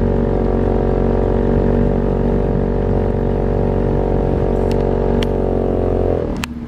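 Small boat's motor running at a steady speed, then throttled back a little past six seconds in, its pitch sliding down and the sound dropping. A couple of sharp clicks near the end.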